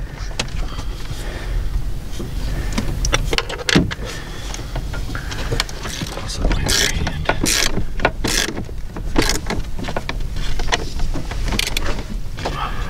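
Metal ring lugs and heavy battery cables clinking and rattling as they are handled and stacked onto a battery terminal post, with short clicks throughout and louder clinks in the middle and near the end, over a steady low rumble.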